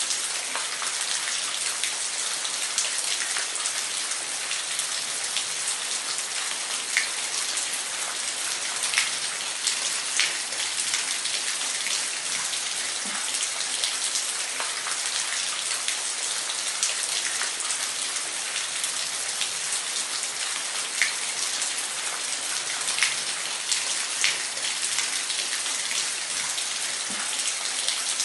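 Waterfall: a steady rush of falling water with many small, scattered splashes of drops.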